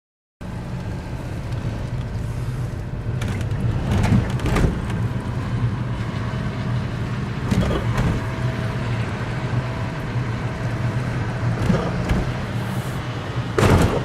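Daihatsu Move Custom RS (L175S) turbo kei car being driven, its engine and road noise steady, with several irregular knocks, the loudest pair near the end. This is the 'kotokoto' knock heard while driving, which the owner puts down to worn front brake caliper slide pins and sagging engine mounts.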